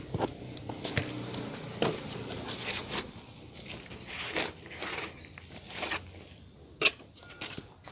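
Hands digging and scooping loose potting soil in a basin: irregular crackling, scratching and rustling, with a single sharp click near the end.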